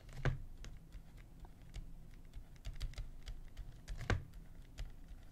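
Light tapping and clicking of a stylus on a pen tablet during handwriting, with a louder tap about four seconds in.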